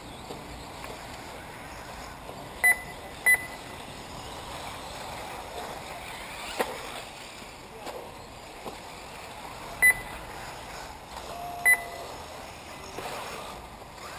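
Four short, loud electronic beeps, a pair close together early on and two more later, over a steady outdoor background hiss. The beeps are typical of an RC race's lap-timing system registering buggies crossing the timing loop.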